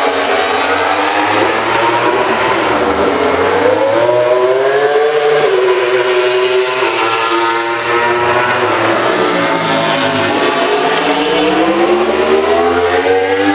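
MotoGP racing motorcycles, Suzuki GSX-RR inline-fours among them, running hard past the track. The engine note climbs steeply, falls away about six seconds in, then climbs again toward the end.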